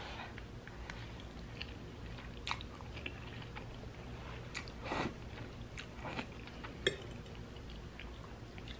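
Mouth sounds of eating spaghetti: noodles slurped in and chewed, with scattered short wet sounds. The longest comes about five seconds in and a sharp click near seven seconds.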